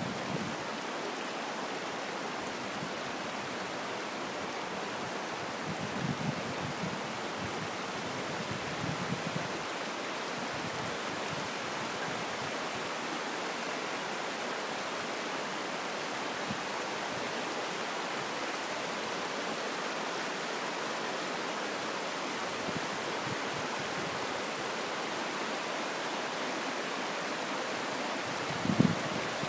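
Steady rushing of water over rocks in a shallow mountain stream by a small waterfall, with a few brief low bumps, the strongest near the end.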